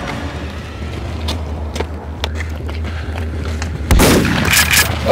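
A low steady hum with a few faint clicks, then about four seconds in a sudden loud burst of gunfire with booming blasts.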